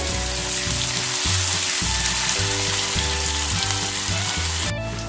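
Sliced onions sizzling steadily in hot oil in a steel kadai, in the early stage of being lightly fried. Background music runs softly underneath.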